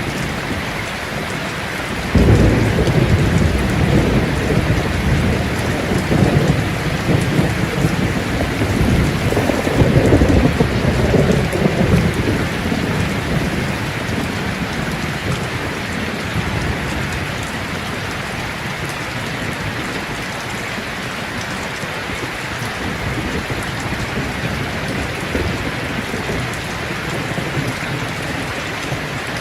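Heavy rain falling steadily, with a thunderclap about two seconds in that rolls on as a low rumble, swells again around ten seconds, and fades out by about fifteen seconds.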